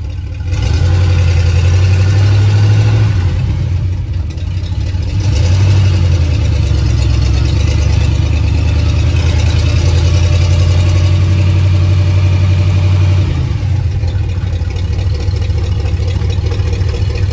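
Freshly rebuilt Ford 360 FE V8 in a Dentside pickup running loudly, its note dipping briefly about four seconds in, then holding steady before easing back about thirteen seconds in.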